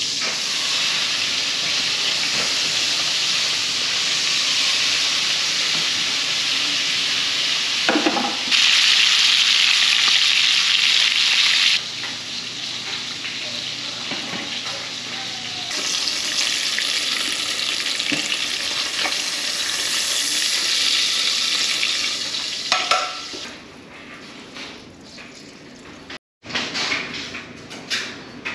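Black drum fillets frying in butter and olive oil with garlic in a hot pan: a steady, loud sizzle that steps up and down in loudness. About three quarters of the way through the sizzle drops away, leaving quieter short clicks and taps.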